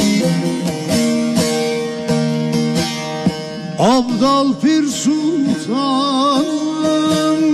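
Turkish folk music: a plucked-string instrument plays sustained notes, and about halfway through a voice enters with a highly ornamented, wavering melodic line.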